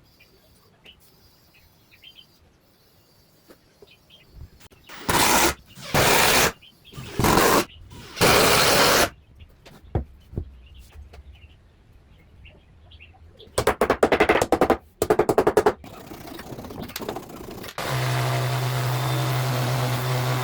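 Woodworking tool noise: four loud, short bursts, then after a pause a fast rattling run of strokes, and near the end a machine starts up and runs steadily with a low hum.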